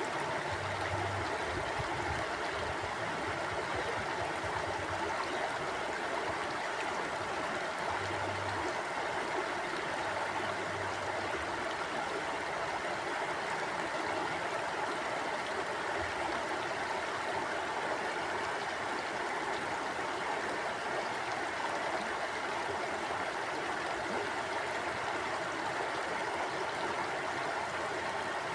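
Mountain river flowing over rocks: a steady rush of water with no breaks.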